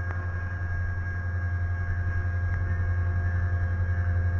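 BNSF diesel-electric locomotive running as the train passes, a low steady drone with faint steady tones above it, growing slightly louder and pulsing evenly toward the end.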